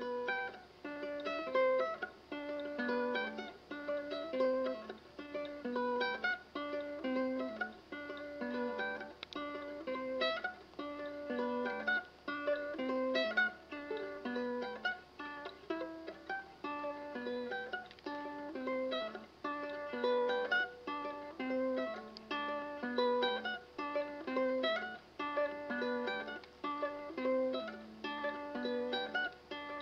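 Instrumental music on a plucked string instrument: a steady, rhythmic pattern of picked notes over a repeating bass figure.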